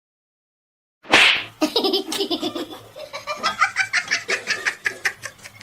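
A short, loud burst of noise about a second in, followed by a person laughing hard in quick, repeated bursts for about three seconds.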